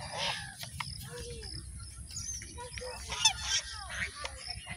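Scattered bird calls: short, arching mid-pitched calls, with a quick run of high chirps about three seconds in.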